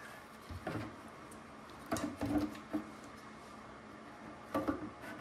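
A few light knocks and handling clatter in three short clusters, under a second in, around two seconds in and near the end, over a steady low background hum.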